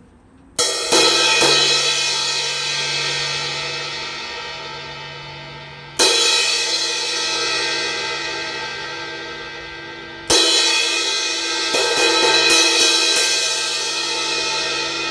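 Paiste Signature 18-inch Precision Crash cymbal, cracked at the edge, struck hard and left to ring: three loud crashes, each washing out slowly over several seconds, then a quick run of repeated hits a little before the end.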